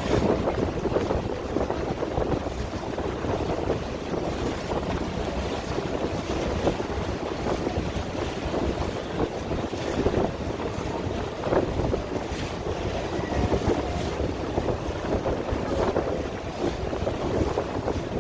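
Wind buffeting the microphone over water rushing and splashing against a moving boat, with a steady low rumble underneath.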